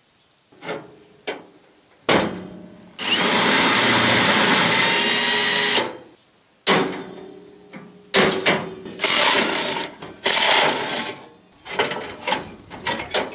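Cordless drill drilling out a steel rivet in a 1966 Chevy Biscayne's grille bracket: one long steady run of about three seconds, then several shorter bursts as it cuts through. Short knocks from metal being handled come at the start and near the end.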